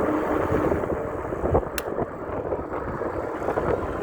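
Steady rumble of wind on the microphone and passing traffic outdoors, with a single sharp click a little before the middle.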